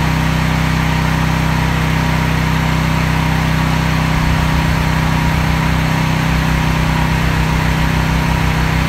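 Small engine of an AGT Industrial QH12R mini excavator running steadily at idle. About four seconds in, its deepest note starts to waver and pulse.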